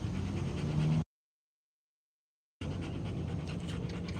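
A dog panting rapidly close to the microphone. The audio cuts out completely for about a second and a half in the middle, then the panting resumes.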